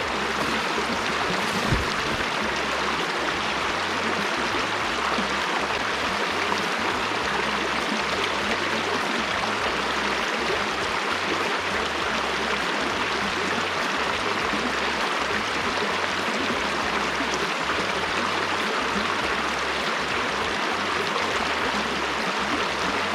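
Small river running over shallow rapids: a steady rush of moving water, with one short knock about two seconds in.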